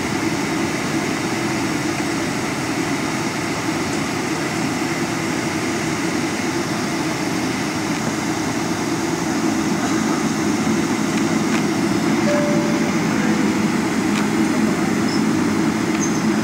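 Steady cabin noise inside a Boeing 777-300 as it taxis, its engines running with the air-conditioning hiss, growing a little louder about ten seconds in.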